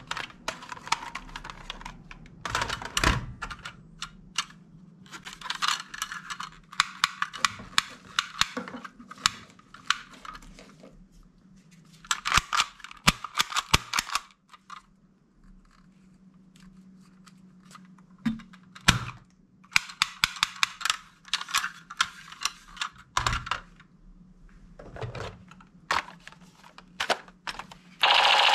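Hard plastic toy guns being handled: clusters of sharp clicks and clatters as they are picked up, worked and set down among other toys, over a faint steady low hum.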